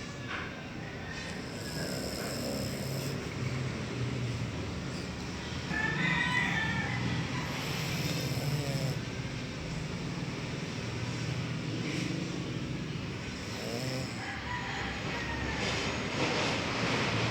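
Dog snoring in slow, repeated low rasping breaths.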